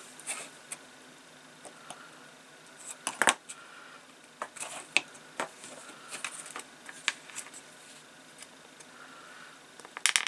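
Small clicks and taps of metal tweezers and small plastic model-kit parts being handled on a cutting mat, with a sharper click about three seconds in and a quick run of clicks near the end as a part is pressed into place.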